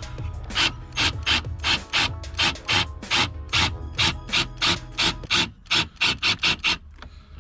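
A screw being driven into the front lip by hand: a run of short, even strokes, about three a second, quickening near the end.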